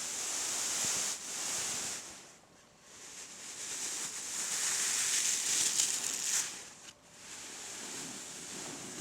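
Rustling of a bean bag being handled, a soft hiss that swells and fades in long strokes with brief pauses.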